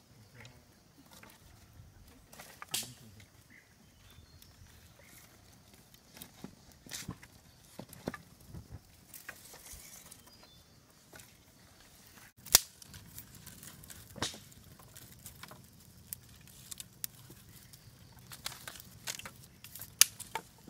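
Wood fire of sticks burning in the firing opening of a mud-brick kiln, crackling with irregular sharp pops, a few of them much louder than the rest.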